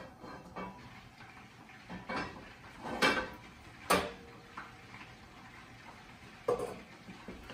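Cast-iron skillet clanking against the gas range's iron grates as it is shifted on the burner: a few separate metal knocks, the sharpest about four seconds in with a short ring after it.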